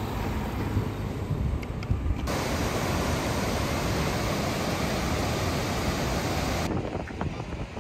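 Wind rumbling on the microphone under a steady rushing hiss. The hiss grows louder and brighter about two seconds in and cuts off abruptly about a second before the end.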